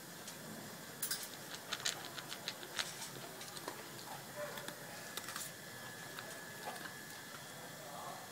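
Shetland sheepdog eating from a plastic bowl: irregular crisp clicks and crunches of chewing, most frequent in the first few seconds.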